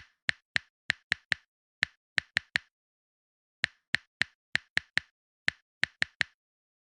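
A series of about twenty sharp, dry clicks in two irregular runs with a pause of about a second between them, over dead silence, like an edited-in typing or clicking sound effect.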